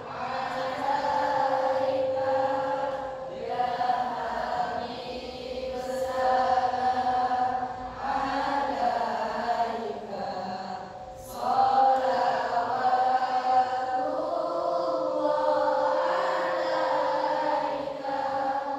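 Two girls' voices chanting together in a long melodic line, with sustained notes broken by short pauses for breath every few seconds.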